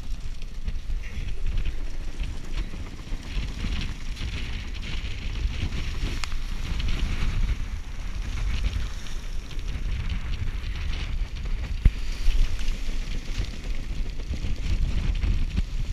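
Wind buffeting the microphone of a camera on the deck of a J/33 sailboat running through rough seas, over the hiss and rush of water along the hull. One sharp knock about twelve seconds in.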